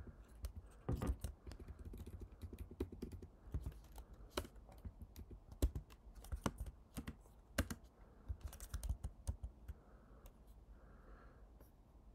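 Typing on a computer keyboard: irregular keystrokes, some in quick runs, that thin out and stop about nine to ten seconds in.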